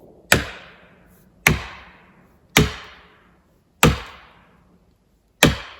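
Five heavy, sharp blows of a striking tool, about one every second and a bit, each trailing off in a ringing echo.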